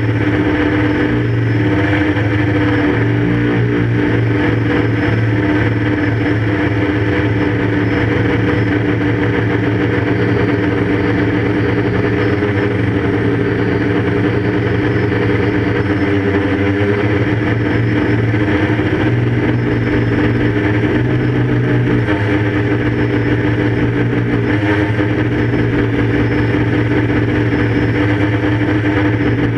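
QAV 500 quadcopter's brushless motors and propellers, heard through the GoPro it carries: a loud, steady droning hum with only small shifts in pitch as the craft holds its flight.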